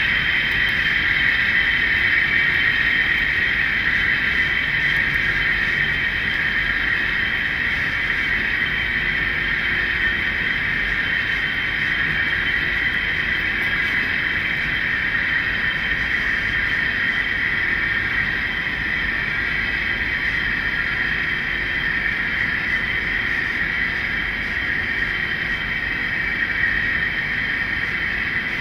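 Model train running steadily along the layout track, its locomotives pulling a track-cleaning car, giving an even, unbroken hum and rolling noise.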